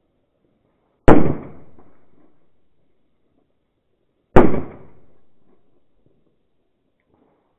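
Two large firecrackers going off, about three seconds apart, the first about a second in; each bang is very loud and rings out for about a second as it fades.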